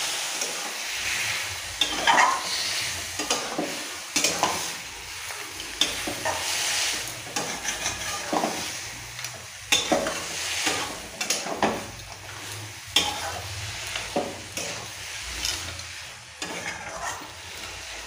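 Spatula stirring and scraping cabbage and potato through sizzling masala in a metal kadai: irregular scrapes and knocks over a steady frying sizzle.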